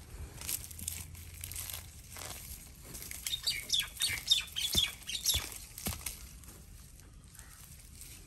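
Small birds chirping in a quick run of short, high calls for a couple of seconds in the middle, with a few soft knocks and some rustling.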